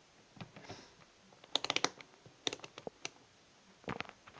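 Plastic clicks from a Mastech M-830B digital multimeter being switched over to the volts range: its rotary selector dial clicking through its detents and its test leads handled. A quick run of clicks comes about one and a half seconds in, then a few single clicks.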